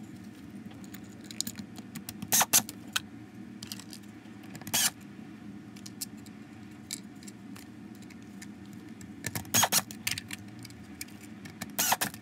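Small metal screws clicking and rattling against the plastic housing of a Dyson DC25 cyclone assembly as they are picked up and set into its screw holes, in a few short bursts of clicks.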